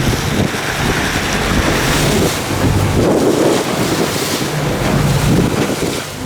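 Wind buffeting the microphone and sea water washing along the hull of a fishing boat under way, with a low engine hum underneath.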